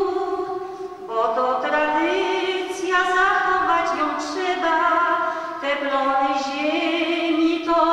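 Voices singing a slow song without instruments, in long held notes that step up and down in pitch, with a short break about a second in.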